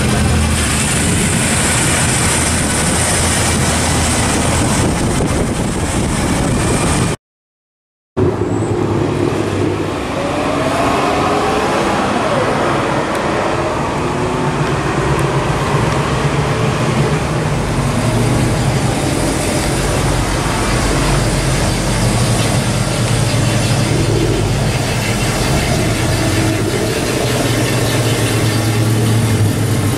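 Classic American muscle cars' engines and exhausts running as the cars drive slowly past one after another. About seven seconds in the sound cuts out completely for about a second, then the engine sound resumes.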